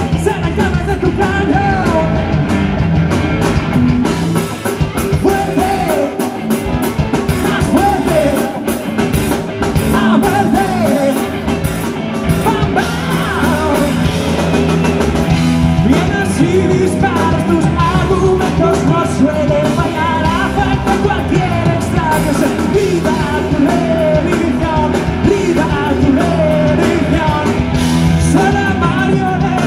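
Live rock band playing loud and without a break: a lead singer over electric guitars, bass guitar and drums.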